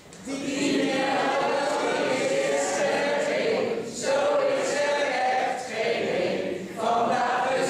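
A mixed group of men, women and children singing a Dutch song together, phrase by phrase with short breaths between lines.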